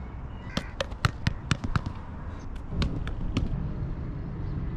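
A quick run of sharp taps and knocks, about eight within a second and a half, then a few more. A low steady rumble follows.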